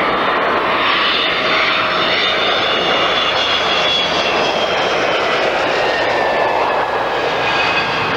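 Su-27 jet fighter's twin Lyulka AL-31F turbofans heard up close: a loud, steady jet roar with a high whine that slowly falls in pitch as the aircraft passes low.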